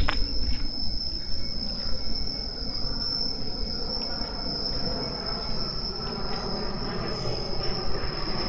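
Insects calling in one steady, high-pitched drone that does not break, over a low rumble.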